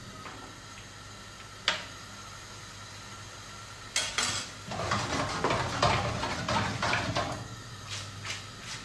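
Kitchen utensils clattering and scraping against a metal frying pan as spaghetti is lifted from the pot into the pan and stirred in. One click about two seconds in; from about four seconds in, a steady run of clanks and scrapes.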